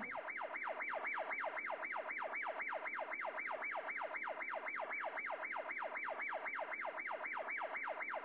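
Electronic siren in a fast yelp, its pitch sweeping up and down about five times a second in an even, unbroken pattern.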